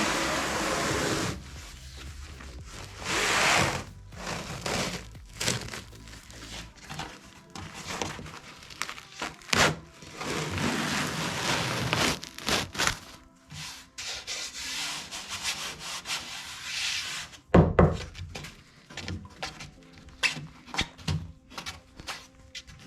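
Hand work on wood: bursts of rough rubbing strokes broken by scattered knocks and clicks, with a heavy thump about 17 seconds in.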